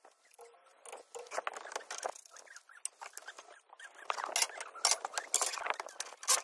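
Scattered clinks, taps and scrapes as a scaffolder clambers over roof tiles and handles steel scaffold tubes and fittings, sparse at first and busier in the second half.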